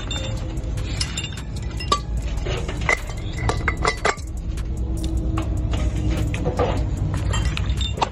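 Steel differential parts clinking and knocking together as the differential case is assembled over the ring gear, many short metallic clinks, some of them ringing briefly. Background music runs underneath.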